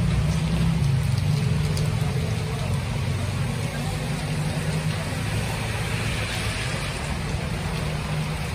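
Rain falling steadily on a wet road, an even hiss, under the low steady hum of a van's engine idling.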